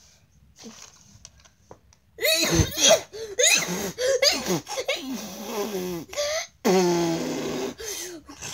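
A child's voice making wordless silly noises: grunts and raspy mouth noises with sliding pitch, loud and almost unbroken, starting about two seconds in.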